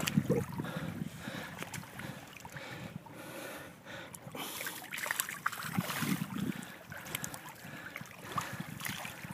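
Shallow river water lapping and trickling at a sandy shore, with scattered small clicks and knocks and a couple of low rumbles.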